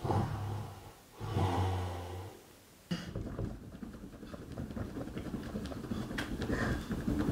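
Two long, low, buzzing farts, each lasting about a second, from a man whose stomach is upset after a curry. They are followed by a few seconds of softer, rough noise.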